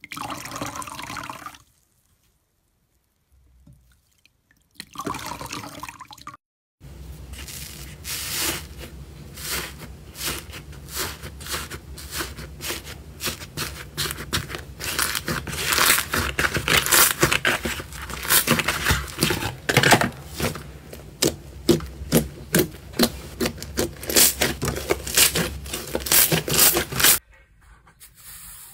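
Hands tearing and crumbling a dry, cracked purple slime in a tub, making rapid, irregular crackling and crunching. It opens with a short wet squelch of water-soaked slime squeezed in the hand.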